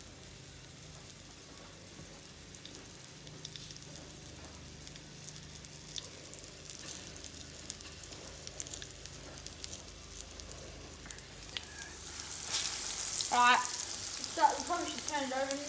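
Breadcrumbed baldchin groper pieces shallow-frying in oil in a pan, with a faint crackle that grows into a loud hissing sizzle about twelve seconds in.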